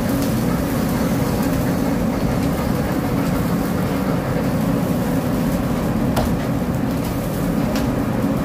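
Steady low mechanical rumble, even and unbroken, with a faint click about six seconds in.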